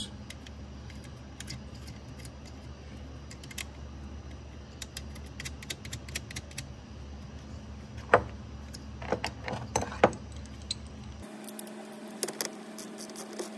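Scattered light metallic clicks and clinks of a wrench and battery terminal hardware being handled while the terminals go on a car battery, the sharpest clicks about eight and ten seconds in, over a steady low hum.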